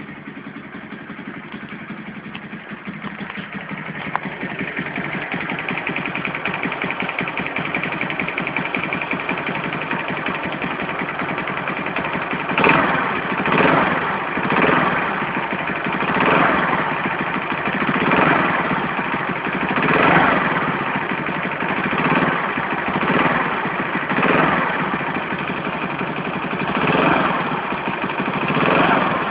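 Alpha moped's four-stroke single-cylinder engine idling, then revved in a dozen or so short throttle blips about a second apart. The engine has a knock that the owner cannot identify, most audible when the throttle is blipped.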